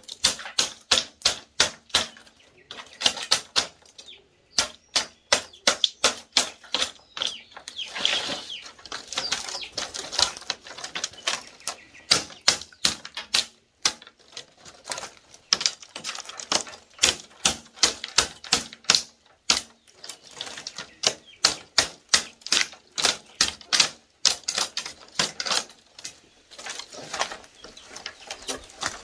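Rapid runs of sharp knocks on wood, several a second, with short pauses between runs, from hand woodworking.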